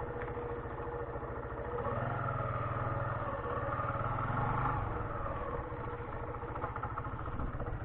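Suzuki Intruder 125's single-cylinder four-stroke engine running at low road speed, its note swelling a little about two seconds in and easing off again after about five seconds.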